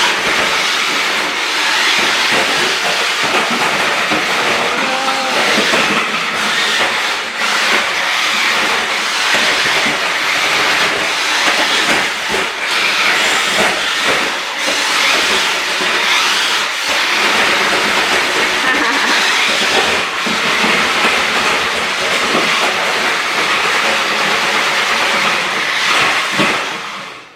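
1/8-scale RC Jeep Wrangler driving: a steady whir of its electric motor and gears with tyre noise, broken by a few knocks. It cuts off suddenly at the end.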